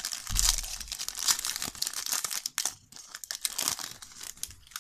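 Foil wrapper of a Match Attax trading-card booster pack crinkling and tearing as it is opened, heaviest for the first two and a half seconds, then lighter rustling as the cards are slid out.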